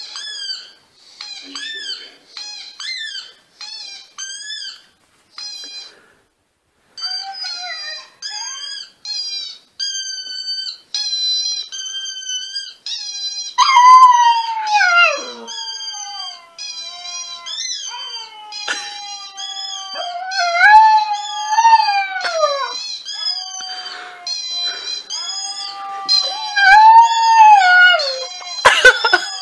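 Siberian husky puppy howling: a string of short, high-pitched yipping howls that turn longer and louder about halfway through, each sliding up and down in pitch.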